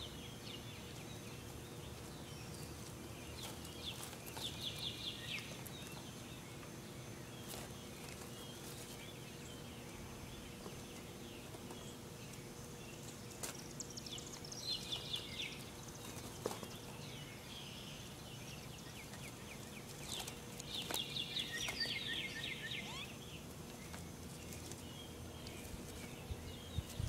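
A bird's quick trill of rapid notes falling in pitch, heard three times several seconds apart, over a faint steady outdoor hum.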